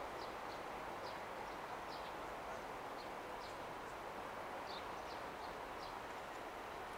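Birds chirping in short, high, falling notes, irregularly about one or two a second, over a steady outdoor background hum.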